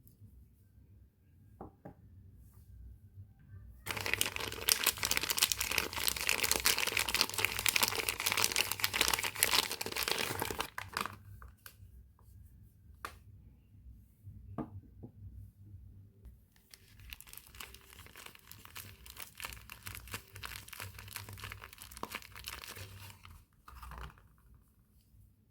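Soap wrapping being torn open and crinkled by hand: a loud stretch of dense crackly tearing about four seconds in that lasts some seven seconds, then a quieter stretch of crinkling later on, with a few small taps in between.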